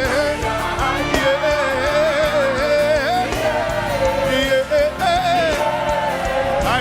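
Live worship music: a singer holds long, wavering notes with no clear words over the band, with a steady drum beat underneath.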